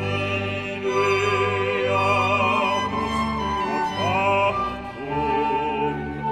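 Male solo voice singing in operatic style, accompanied by a small string ensemble of violins, cello and double bass.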